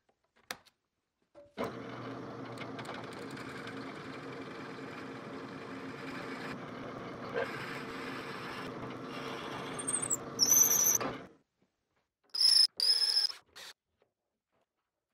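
Drill press boring a twist bit into the end grain of a hardwood handle block: the motor runs with a steady cutting noise for about ten seconds, and the bit squeals sharply just before the run stops. A few short, loud, high squeals follow.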